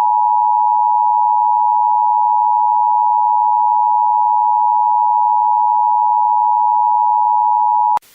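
Emergency Alert System attention signal: a steady two-tone alert tone held for about eight seconds, then cut off suddenly near the end.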